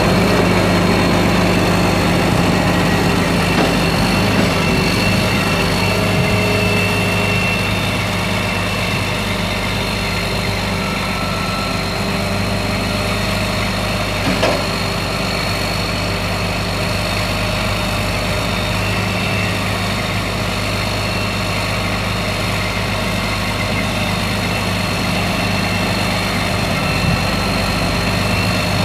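Mack 12.0-litre six-cylinder diesel engine of a heavy truck idling steadily, with one short knock about halfway through.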